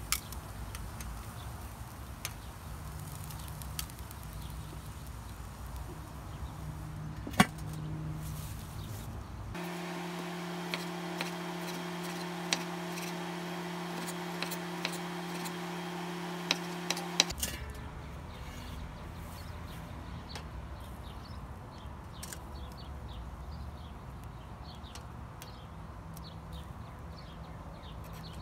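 Outdoor grilling sounds: a steady background with occasional sharp clicks, one loud click about seven seconds in. Midway, for about eight seconds, a kitchen knife chops on a wooden cutting board in crisp taps over a steady hum. Then it returns to the outdoor background with light clicks of metal tongs moving food on the grill.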